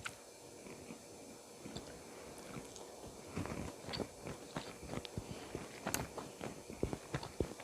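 Close-miked eating of spicy chicken feet: quiet at first, then from about three seconds in a quick run of wet mouth clicks, smacks and chewing.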